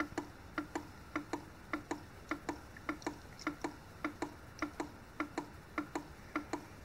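OI Analytical 9310 on-line cyanide analyser running, its mechanism ticking steadily in pairs of clicks that repeat about every 0.6 seconds.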